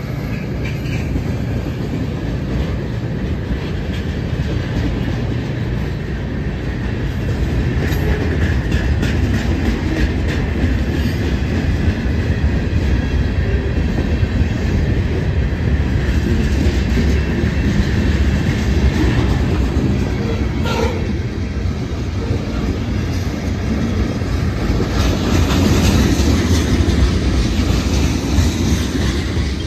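BNSF freight train passing close by, its locomotives and then a long string of boxcars and tank cars rolling past with a steady rumble of steel wheels on rail, growing louder about a quarter of the way in and again near the end.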